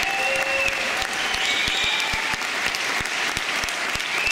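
Large audience applauding, with dense rapid clapping and a few high, held whistles rising over it, one at the start and one near the end.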